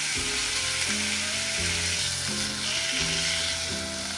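Steak sizzling in a hot black hinged pan while the pieces are turned and lifted with chopsticks. Background music with a low stepping melody plays underneath.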